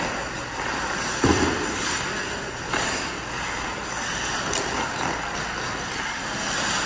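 Ice hockey skates scraping and carving on rink ice, a steady noisy rasp, with a dull thump about a second in and a few sharp stick-and-puck clacks.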